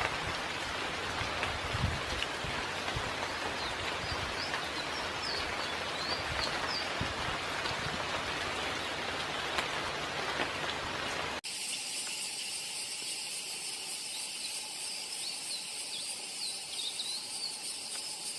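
Short, high bird chirps over a steady rain-like hiss. The hiss cuts off abruptly about eleven seconds in, and a steady insect chorus with a few more scattered chirps takes its place.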